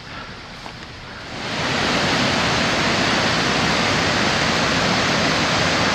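Whitewater of a mountain river rushing over rocks in a steady, loud wash of noise that swells in about a second and a half in, after a quieter hiss. The river is running high, with much more water than normal.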